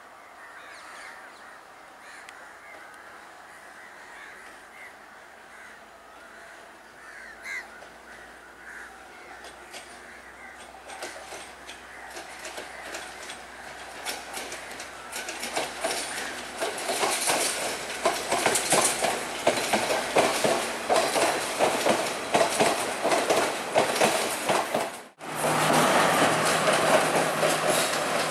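A Sri Lankan diesel train approaching and passing, its wheels clacking over the rail joints louder and louder. Near the end there is an abrupt cut to a train running close by with a loud, steady engine hum.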